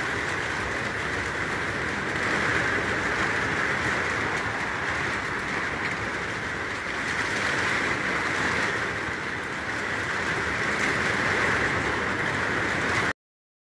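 Rain on a corrugated metal (tin) roof, heard from the room beneath: a dense, steady rush that stops abruptly near the end.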